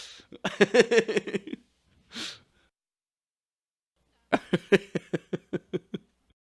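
A man laughing in two bouts, each a quick run of short "ha" pulses, with a sharp breath drawn in between them. The second bout slows and fades out after about nine pulses.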